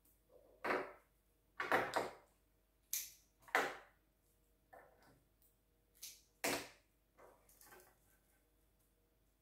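Dried plant stems rustling and crackling in the hands as they are bound onto a wreath ring, in a series of short bursts that stop near the end.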